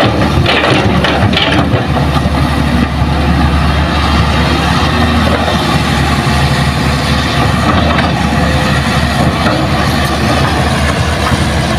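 Hitachi hydraulic excavator's diesel engine running steadily as the machine works and swings, with a clatter of rock and earth dropping into a steel dump-truck bed in the first couple of seconds.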